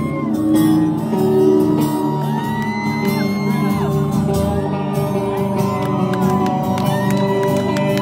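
Live worship music from a band with guitar, with voices shouting and whooping over it.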